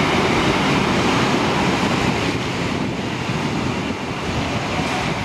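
Adelaide Metro 4000-class electric multiple unit passing close by at speed through a station without stopping. Its wheels on the rails and the rushing air make a loud, steady rush of noise that eases slightly toward the end.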